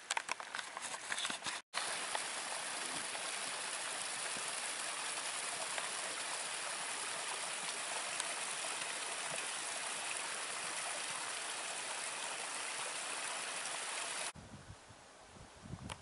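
A small mountain creek running over rocks, a steady rushing hiss. It cuts off suddenly a little before the end, leaving quieter outdoor sound.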